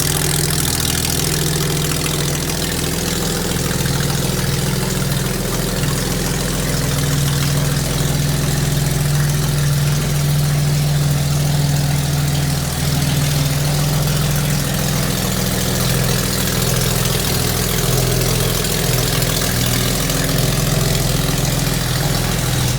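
Freshly rebuilt 1957 Jaguar XK140's 3.4-litre twin-cam straight-six idling steadily on an engine run stand, a break-in run before it goes into the car.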